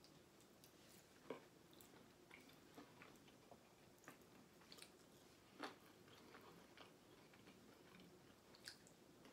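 Faint chewing and mouth sounds of a person eating, with a few soft scattered clicks over near silence.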